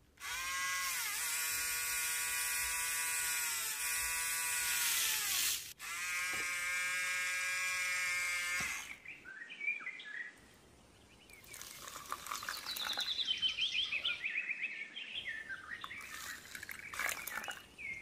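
Small DC toy motor of a home-made miniature concrete-mixer truck switched on, running with a steady high whine for about five seconds, then again for about three seconds after a short break. Birds chirp through the second half.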